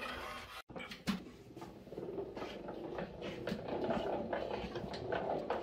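Hand-cranked honey extractor being turned: its gear drive and frame basket running with a steady churning noise dotted with many small clicks, building up over the first few seconds.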